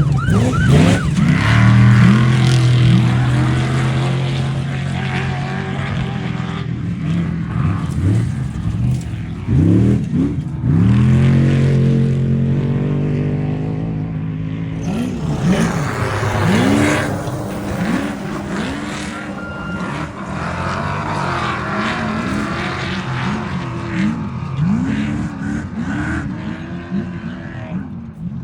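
Off-road race vehicles' engines revving hard, the pitch climbing and dropping again and again as the throttle is worked, with a couple of longer steady pulls at high revs.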